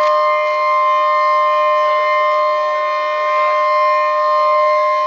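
Demolition warning siren sounding one steady, unwavering tone, the second of the warning sirens given before the building is blown.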